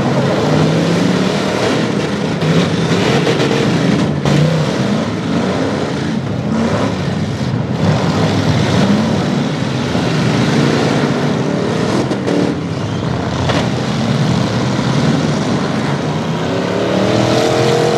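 Several demolition derby street-stock car engines revving hard as the cars launch and ram each other. Sharp crashes of car hitting car cut through a few times.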